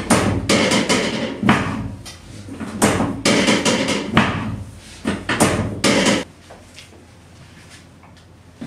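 Irregular series of loud knocks and thumps as hands thrust down on a patient's lower back on a treatment table during a lumbar manipulation. They stop about six seconds in.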